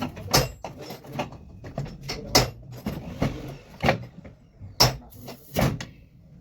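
Irregular knocks and clicks of hard parts and tools being handled while working on an electric demolition hammer, with five or six sharper strikes among lighter taps.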